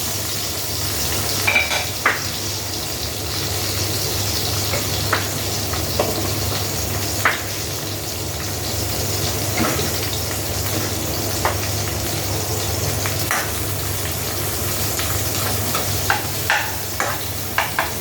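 Minced ginger and garlic sizzling steadily in hot oil as they are sautéed, with scattered clicks and scrapes of a cooking utensil stirring against the pan.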